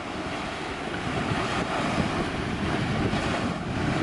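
Small waves washing onto a sandy beach, with wind buffeting the microphone as a steady, uneven rumble.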